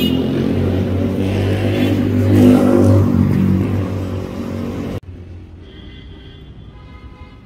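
A motor vehicle engine running close by, growing louder to a peak and then easing off. It cuts off suddenly about five seconds in, leaving a much quieter background with a faint steady whine.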